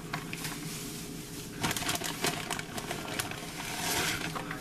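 Shredded mozzarella being sprinkled by hand over a foil casserole pan: soft rustling, with a run of light clicks and crinkles from about one and a half to three seconds in.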